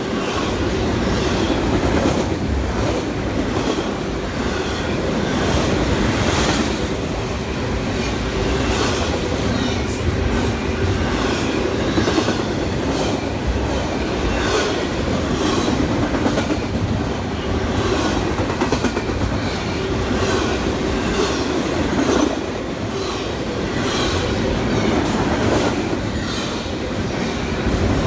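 A train rolling through at steady speed, its wheels clicking over rail joints in an even rhythm of about one click a second, over a constant rumble and hum.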